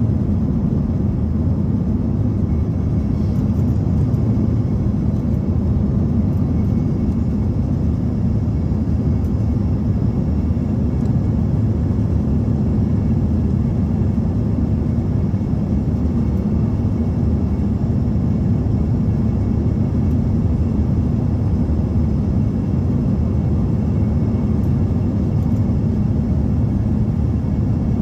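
Steady low rumble inside the cabin of an Embraer ERJ-145 on its descent: airflow noise and the jet engines heard from a window seat, running evenly.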